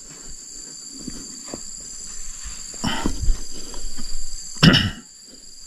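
Insects droning steadily in two high tones, with knocks and rustles of gear being handled close by about three seconds in and again, louder, near five seconds.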